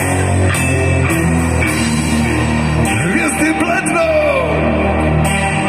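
Live rock band playing loudly, heard from within the audience: sustained bass and drums under a high note that slides up and back down about three seconds in.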